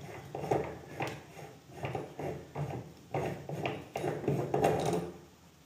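Chrome tap wall cap being turned off by hand: a run of uneven light metallic clicks and scrapes, about two a second, dying away near the end.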